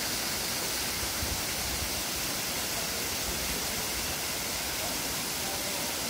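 Steady rush of water from Chōji Falls, a waterfall mostly frozen into an ice fall, with water still pouring out beneath the ice.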